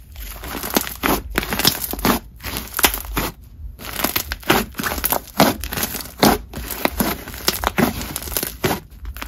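Hands squishing and stretching a thick, juicy jelly slime, with a quick irregular run of sticky pops and crackles as trapped air bubbles burst.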